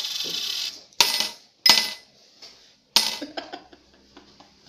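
Thrown coins clinking against a glass tumbler and the tabletop. There are three sharp metallic clinks with short ringing tails: about a second in, again a moment later, and once more about three seconds in, followed by a few faint ticks. A short rushing noise fades out at the very start.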